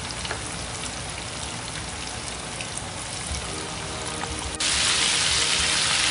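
Breaded chicken pieces deep-frying in hot oil in a steel pan: a steady sizzle, jumping suddenly louder about four and a half seconds in. Soft background music lies under the first part.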